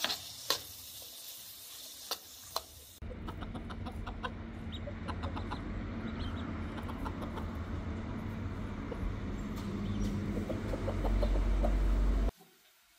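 Chopped onions sizzling in a metal pan, with a few clinks of the spoon stirring them. Then ducklings peeping in many short high chirps over a low rumble that grows louder before cutting off suddenly.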